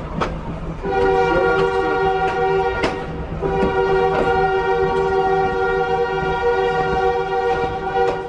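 Train horn sounding two long blasts as the train rolls slowly through people and goods on the track: the first starts about a second in, the second follows a short break and is still going at the end. Under the horn, the wheels click over the rail joints.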